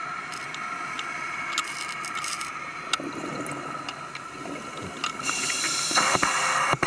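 Underwater sound of a scuba diver breathing through a regulator: a steady hiss with scattered small clicks, then a louder burble of exhaled bubbles from about six seconds in.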